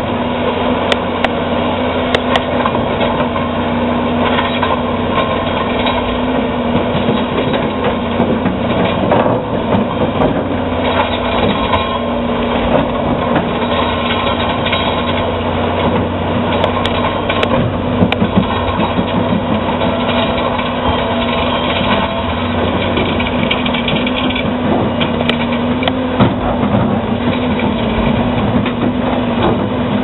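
Caterpillar D7G bulldozer's diesel engine running steadily under load while it rips rocky ground, with scattered sharp knocks and clicks from the tracks and breaking rock.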